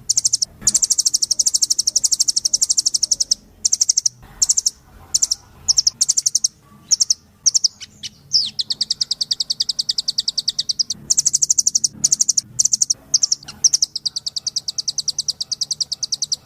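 Velvet-fronted nuthatch singing: long, rapid trills of high, sharply repeated notes, broken by short pauses.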